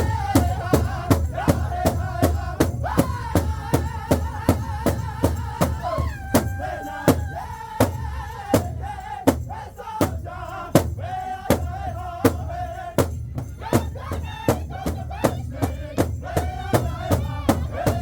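Powwow drum group singing in high voices over a steady, even beat on the big drum, the sung lines held and stepping down in pitch.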